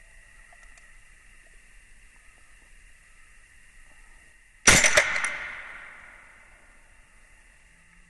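WE 1911 gas blowback airsoft pistol firing one shot past the middle: a sharp crack with a couple of quick clacks right after it as the slide cycles, fading away over about a second and a half.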